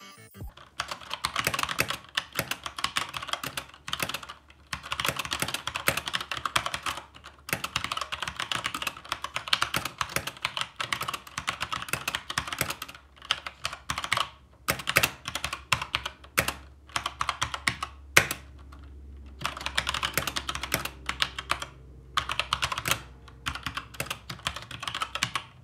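Typing on a Magicforce full-size mechanical keyboard with Gateron brown switches and ABS keycaps: fast runs of keystrokes broken by short pauses.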